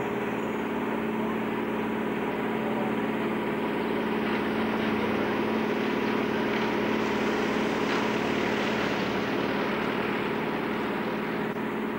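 A steady engine drone: a motor running at a constant speed, with an even hum under a wash of noise that swells slightly in the middle.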